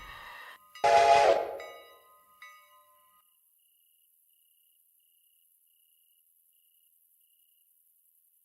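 A short, loud train whistle blast that starts suddenly about a second in and fades away over the next second, with the tail of background music just before it; then near silence.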